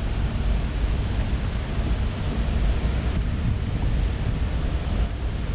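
Wind buffeting the camera's microphone: a steady, loud low rumble with a hiss above it. A single brief click near the end.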